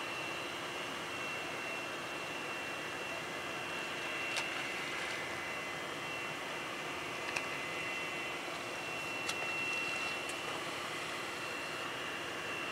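EA-6B Prowler's twin J52 turbojets idling: a steady high whine over a rushing hiss, with a few short sharp clicks.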